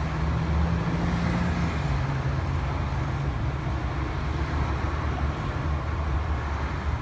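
City street traffic: a steady low rumble of passing and idling vehicle engines. A motor hum drops a little in pitch about a second and a half in and fades out about halfway through.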